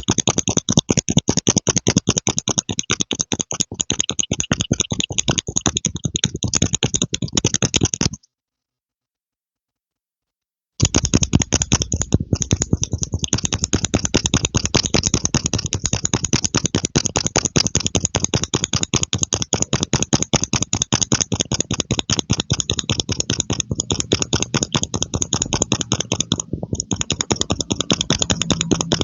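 Rapid, even clicking, about eight to ten clicks a second, cut by a dead-silent gap of about two and a half seconds some eight seconds in.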